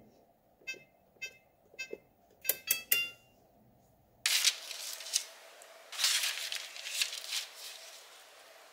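An oven's touch control panel beeps at each key press while the preheat temperature is set: a series of short beeps, the last few quicker and at different pitches. About four seconds in, sheet parchment paper rustles and crinkles as it is smoothed flat onto a metal baking sheet.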